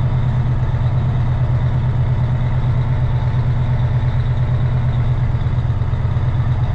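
Peterbilt semi-truck's diesel engine running steadily while the truck rolls along, heard from inside the cab: a steady low drone.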